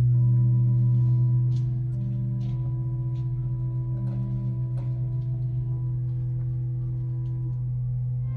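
Handbells ringing on after being struck: a deep bass bell holds one low note throughout, a higher bell sustains above it until near the end, and a few middle notes are rung again briefly along the way. Faint soft clicks are heard in between.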